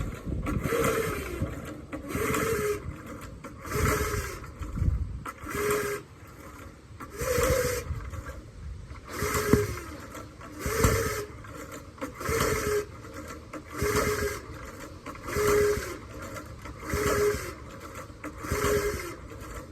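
Small gas engine of an old homemade log splitter making a regular rise and fall about every second and a half, each with a short downward-bending tone, after carburetor repairs that have not cured its trouble.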